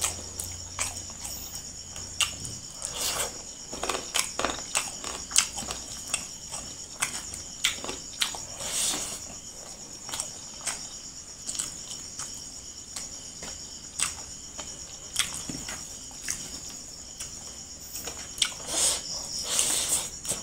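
Close-up mukbang eating: a man chews chicken curry and rice eaten by hand, with wet chewing, lip smacks and many small sharp mouth clicks. A steady high-pitched trill runs underneath throughout.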